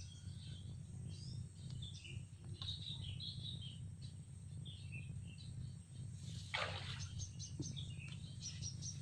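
Small birds chirping and twittering around a rice paddy, with a quick run of repeated high chirps near the end, over a steady low hum. A brief rustling noise comes about six and a half seconds in.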